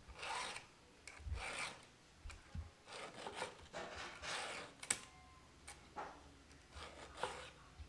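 Round file rasping across the cutters of a chainsaw chain in repeated hand strokes, roughly one a second, sharpening the teeth. A sharp click about five seconds in.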